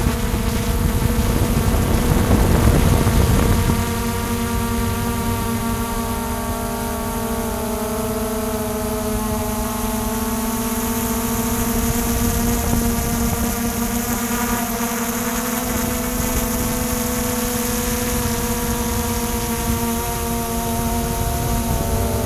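Small camera drone's electric motors and propellers humming at a steady, slightly drifting pitch. For the first few seconds there is also louder wind noise on the microphone.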